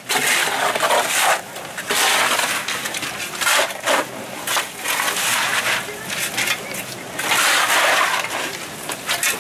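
Several long-handled shovels digging and scraping through wet mud and gravel, in irregular strokes.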